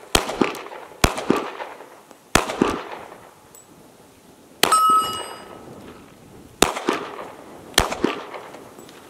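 Glock 23 pistol in .40 caliber fired six times at a slow, uneven pace, one to two seconds between shots, each shot followed a moment later by the clang of a bullet striking a steel target. One hit near the middle leaves the steel plate ringing for about half a second.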